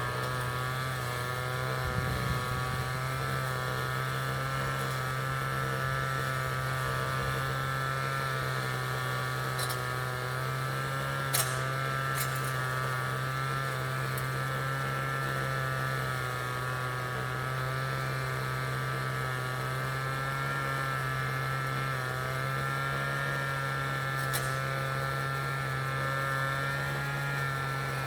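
City traffic ambience: a steady vehicle drone with a low hum and a slowly wavering higher whine, with a few faint ticks around the middle and near the end.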